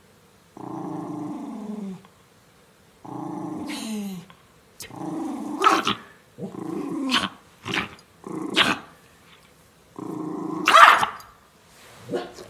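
Miniature schnauzer growling at a teasing hand: two long growls that drop in pitch at the end, then shorter growls that each break into a sharp bark, about five barks, the loudest near the end.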